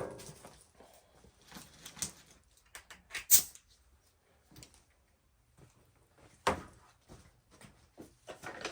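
Scattered metal knocks and scrapes from a jack being shifted about, with a sharp clack about three seconds in and another knock about six and a half seconds in.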